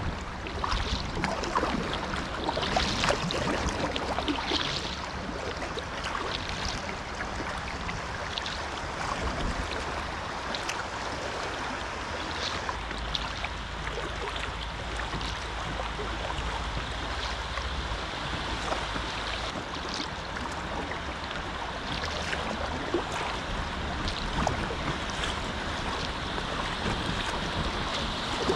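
River in flood rushing and splashing around a packraft, with brief splashes now and then. A low wind rumble on the microphone runs underneath.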